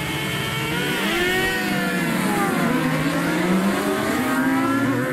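A grid of racing motorcycles revving and pulling away from a standing race start. Several engines are heard at once, rising and falling in pitch as the riders open the throttles and change up.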